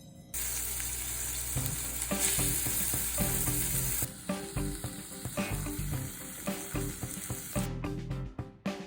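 Food sizzling in a hot frying pan, with repeated clicks and knocks of a utensil working the food. The sizzle starts suddenly just after the start and falls away near the end.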